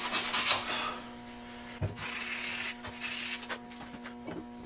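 Sandpaper rubbed by hand around the inside of a metal pulley bore to clean off a rust ridge, in quick even strokes that stop about a second in. After that come a few light knocks as the pulley is handled, over a steady hum.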